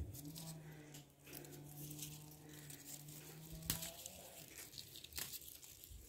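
Faint rustling, tearing and snapping of Vietnamese coriander leaves and stems being picked by hand, with a couple of sharp snaps later on. A faint steady low hum runs under the first four seconds, then stops.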